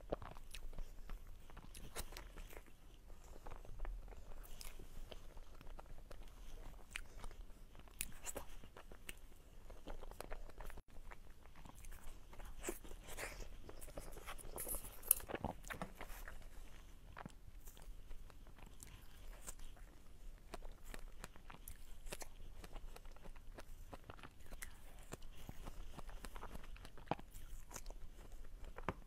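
Close-miked eating sounds of a person biting and chewing soft desserts and cream cake, with many small mouth clicks from the lips and tongue throughout.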